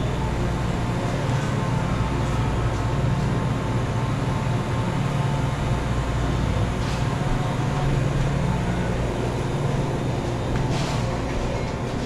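A steady low mechanical drone with a constant hum and a broad noise hiss, with a couple of faint clicks.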